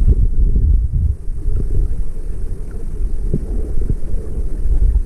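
Muffled low rumble of water moving around an action camera held underwater, heard through its waterproof housing, with a few faint knocks.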